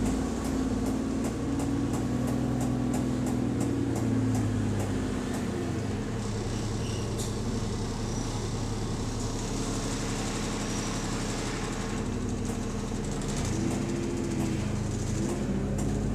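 Double-decker bus engine heard from inside the saloon, its pitch rising and falling as it pulls and eases off. A rhythmic clicking runs with it, its rate following the engine revs, and it thins out during a steadier stretch in the middle.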